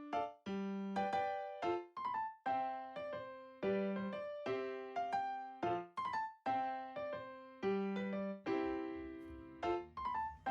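Background music: a light piano or electric piano tune of single struck notes, about two a second, each fading away.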